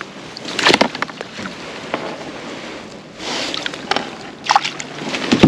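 Water splashing and sloshing beside a kayak as a hooked trout is fought at the landing net, with knocks and clatter of the net and gear against the boat. A few short, sharp bursts stand out over a low background; the loudest comes right at the end.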